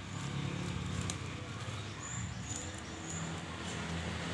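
Motor vehicle engine running, a steady low hum that grows louder toward the end, with a few faint high chirps and light clicks over it.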